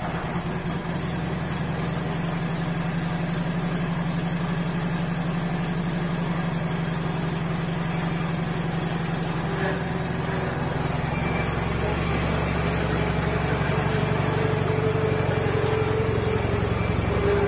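John Deere 317 garden tractor's Kohler twin-cylinder engine running steadily just after starting, a low even hum. Its throttle is stuck and not responding. About ten to eleven seconds in, the engine note shifts and gets slightly louder, with a faint whine added, as the tractor is moved.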